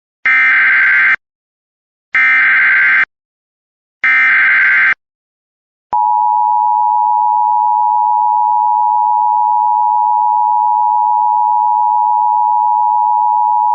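Emergency Alert System (EAS) alert: three one-second bursts of SAME digital header data, a screeching warble, encoding a flash flood warning, followed about six seconds in by the steady two-tone EAS attention signal held for about eight seconds.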